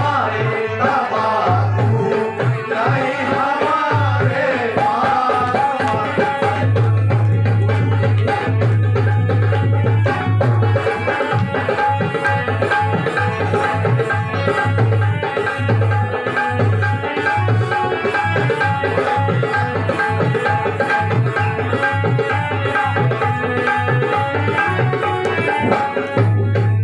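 Live tabla drumming with other instruments holding steady notes, and a voice singing over it in the first few seconds.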